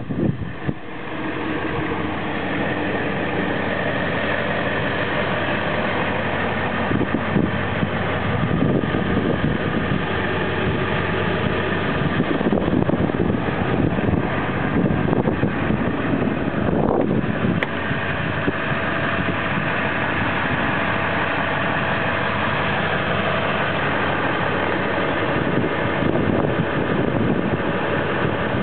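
Ford 7.3-litre Powerstroke turbo diesel V8 idling steadily.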